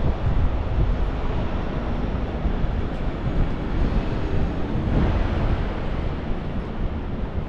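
Wind blowing across the microphone: a steady, uneven low rumble with an even hiss over it.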